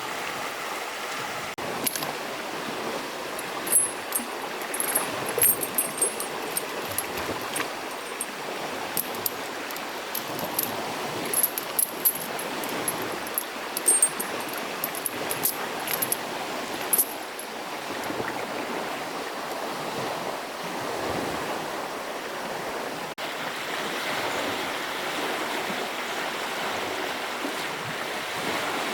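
Steady rushing of flowing water, with short, sharp, high-pitched clicks or chirps scattered through the first half and more.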